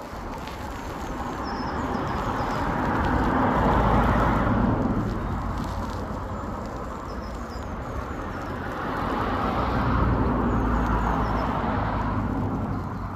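Outdoor ambience in the woods: a steady rushing sound that swells twice, about four seconds in and again about ten seconds in, with a few faint bird chirps.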